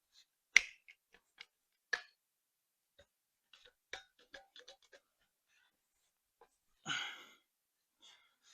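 Scattered clicks and light metallic taps as vice-grip pliers grip and twist a hardened steel steering worm shaft to line up its cam keyways, with a cluster of small clicks in the middle and a short breathy exhale of effort about seven seconds in.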